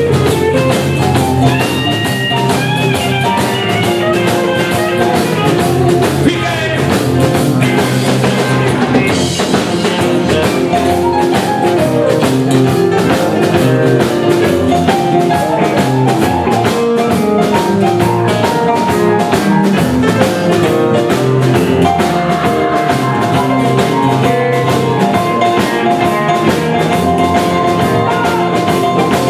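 Live rock band playing: electric guitar lines over a drum kit and bass, with some long held notes in the last few seconds.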